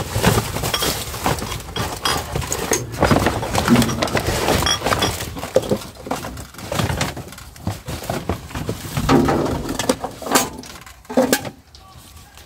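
Rubbish in a dumpster being rummaged through with a grabber tool: paper and plastic bags rustling and crackling, with irregular knocks and clinks. The busy handling goes on for about ten seconds, then turns quieter near the end.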